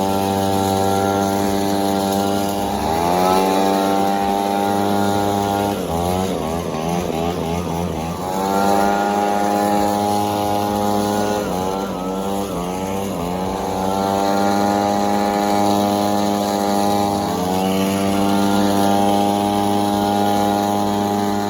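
An engine running steadily, its pitch stepping up and down several times as the throttle changes, with a rougher, wavering stretch near the middle.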